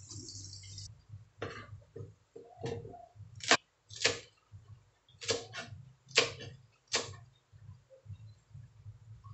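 Cleaver chopping green and red chillies on a plastic cutting board: about eight sharp, irregularly spaced chops.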